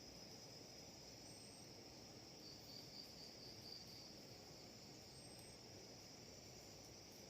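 Faint, steady high-pitched chirring of insects, swelling into a few quick pulses around the middle, over low background hiss.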